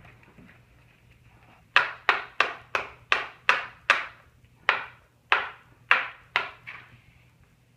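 A run of about a dozen sharp knocks, roughly two to three a second, each dying away quickly, starting about two seconds in and stopping about a second before the end, with a slightly longer gap near the middle.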